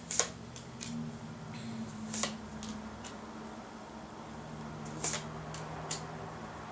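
Tarot cards being handled: sharp paper clicks and snaps as cards are slid and flicked from the deck in the hands, one laid down on the table near the end. A faint steady low hum runs underneath.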